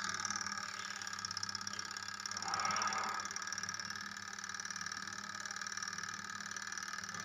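Spin-dryer motor of a semi-automatic washing machine running steadily with a low hum and a high whine, switched on through the timer with the door switch bypassed. A brief louder rush comes about three seconds in.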